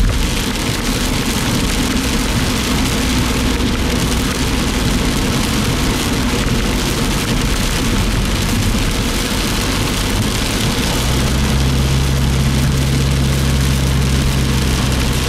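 Heavy rain beating on a moving vehicle and tyres hissing through standing water, with the engine's low hum underneath; about eleven seconds in the engine note becomes louder and steadier.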